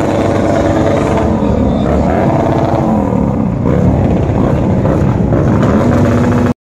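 Motorcycle engines running, a loud, steady mechanical drone that cuts off abruptly near the end.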